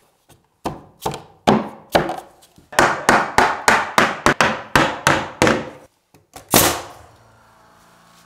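A quick run of sharp knocks on wood, a dozen or so, as a trim piece is tapped into place at the base of the wall. Near the end comes one louder bang, and then a small air compressor's motor hums steadily.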